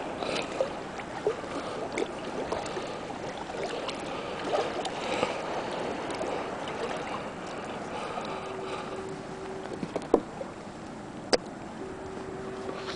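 Kayak paddling on open bay water: a steady wash of water with paddle splashes and sharp knocks of the paddle against the hull. Twice in the second half a steady single-pitched tone sounds for over a second.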